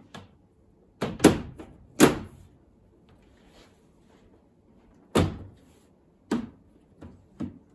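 Magnetic speaker grille being fitted over in-wall speaker modules: about six sharp clacks as it snaps onto the frame and is pressed into place. The loudest come about one and two seconds in, with more later on.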